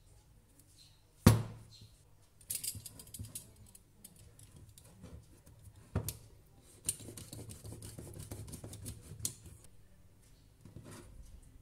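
A sharp thump about a second in, then a utility knife blade cutting through old rubber hose in short scraping strokes, with the hose rustling and knocking on a wooden tabletop.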